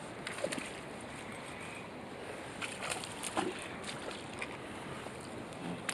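Steady rush of flowing river water, with scattered short clicks and light splashes as a hooked trout is reeled in on an ultralight spinning rod.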